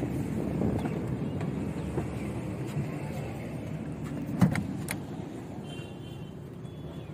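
Steady low outdoor rumble, with two sharp clicks about half a second apart a little past the middle.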